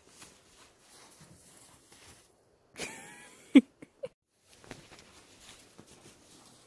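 Dog bounding through snow with soft crunching steps; about three seconds in comes a brief whine ending in one sharp, loud yelp, followed by a couple of small clicks.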